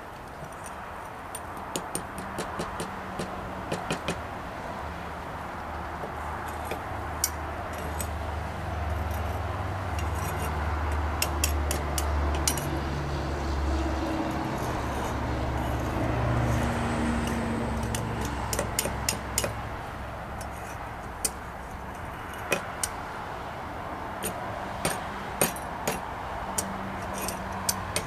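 Graphite mold parts and clamps clicking and clinking against each other and against metal tongs as the clamps are pulled off and the two mold halves taken apart. The sharp knocks are scattered throughout, over a steady background rumble that swells and fades in the middle.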